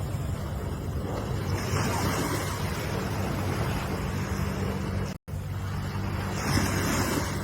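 Ocean waves washing and breaking, swelling now and then, over a steady low rumble. The sound cuts out completely for a split second about five seconds in.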